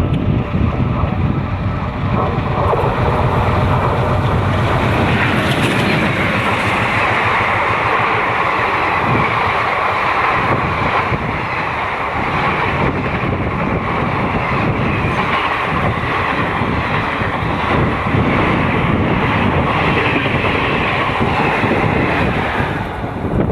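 Express train hauled by twin ALCO diesel locomotives passing close by at speed: a loud, steady rumble and clatter of wheels on the rails, easing slightly near the end.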